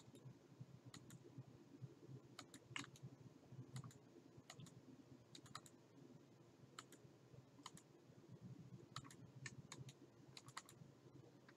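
Faint, irregular clicks of a computer keyboard and mouse, about twenty scattered through, over a low steady hum.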